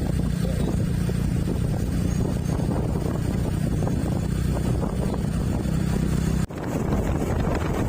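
A vehicle engine running with a steady low rumble, wind buffeting the microphone. The sound breaks off abruptly about six and a half seconds in and resumes as a noisier rumble.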